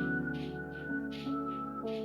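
Soft instrumental background music: held chords that change near the end, over a light, regular beat.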